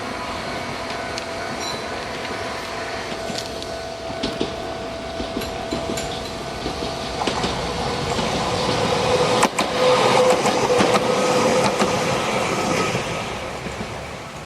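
Electric train running on rails, with a steady whining tone and scattered track clicks. It grows louder to a peak about ten seconds in, with one sharp click, then eases off.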